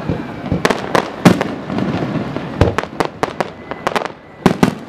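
Professional fireworks display: shells bursting in an irregular run of sharp bangs, several coming in quick clusters, the loudest about a second in.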